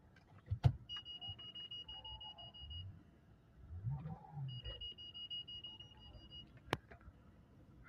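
Car warning tone sounding as two long, steady high beeps of about two seconds each, with a short gap between. A sharp click comes just before the first beep and another click near the end, over faint low rumble.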